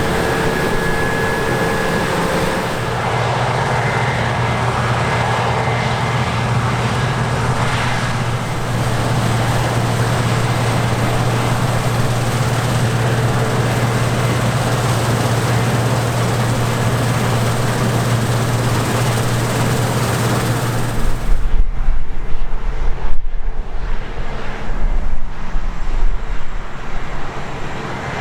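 Heavy farm machinery, most likely a combine harvester, running with a steady low engine hum under a broad working noise. About 21 seconds in, the hum drops out and gives way to an irregular low rumbling with gusty swells in loudness.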